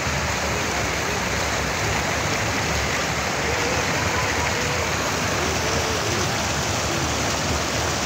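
River water pouring over the edge of a low concrete overflow bridge, a steady rushing with no let-up.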